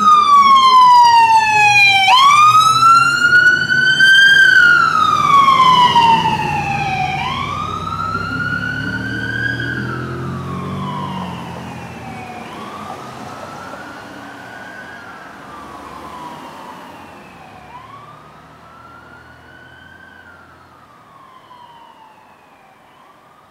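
Electronic siren on a fire chief's Ford F250 pickup wailing in slow rising and falling cycles, with a sharp upward sweep about two seconds in, fading steadily as the truck moves away. A low rumble of passing vehicles sits under it for the first ten seconds or so.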